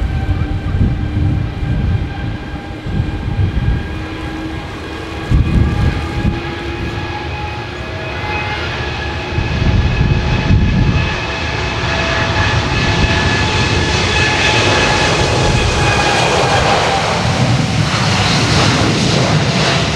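Airliner engines with a steady whine, growing louder and fuller in noise from about twelve seconds in as the aircraft draws near.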